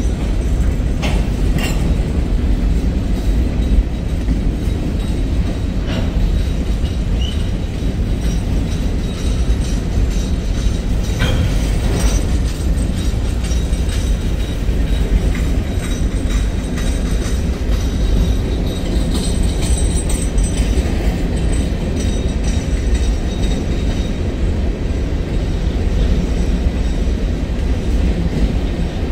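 Freight cars of a long Norfolk Southern manifest train rolling past: a steady low rumble of steel wheels on rail, with occasional clanks.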